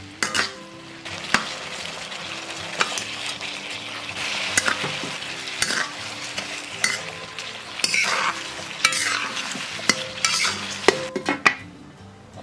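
Prawns and bell peppers sizzling in sauce in a ZWILLING Nova Plus wok as a metal spatula stirs and tosses them, scraping and knocking sharply on the pan. Near the end there is a quick run of clacks, then the sizzle falls quieter as the wok is covered with its glass lid.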